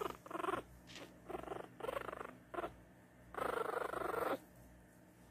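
Three-week-old Pomeranian puppy making its first play growls, a string of about five short rumbling growls, the longest lasting about a second near the end.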